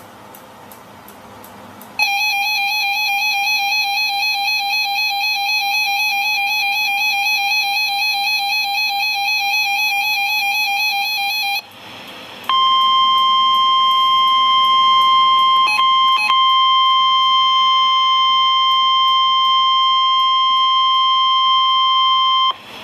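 Weather radio alert tones. First, an Emergency Alert System two-tone attention signal warbles for about ten seconds. After a short break comes the steady NOAA Weather Radio 1050 Hz warning alarm tone for about ten seconds, which drops out for an instant twice. The tone is the signal that switches on weather alert receivers.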